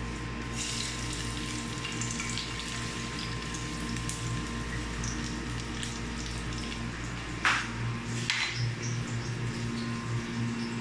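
Chopped garlic sizzling in hot cooking oil in a frying pan, with scattered small crackles over a steady low hum. Two sharp knocks about seven and a half and eight seconds in.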